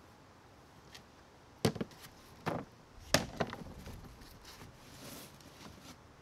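A long wooden board being lifted, turned over and set down on a lattice panel: a few sharp wooden knocks, the loudest about one and a half seconds in and just after three seconds, then softer scraping and rustling as it is shifted.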